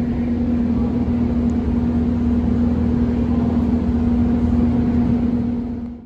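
Metro rail car running, heard from inside the car: a steady rumble with a constant hum.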